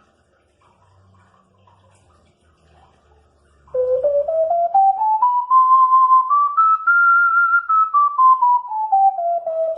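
Alto C 12-hole ocarina playing a scale, starting about four seconds in: single clear notes stepping up from its low end to its top note and back down again.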